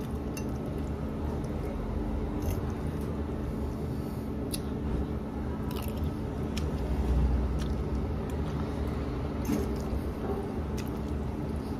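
A person eating spaghetti with a fork: chewing and sucking in mouthfuls of noodles, with a few light clicks, over a steady low hum from the kitchen.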